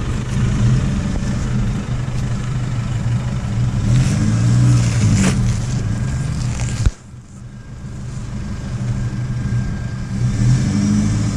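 Four-wheel drive's engine working under load as it crawls up a steep, rutted rocky track, the revs rising and falling. A sharp knock about five seconds in; near seven seconds the sound drops away suddenly, then builds again.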